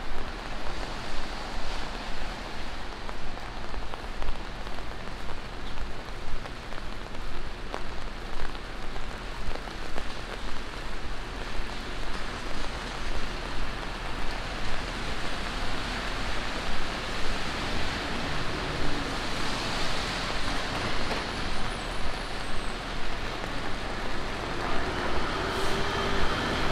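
Rain falling on a wet city street, with traffic on the wet road and regular footsteps on the pavement about twice a second. About two-thirds of the way through, a vehicle's tyres hiss past on the wet road.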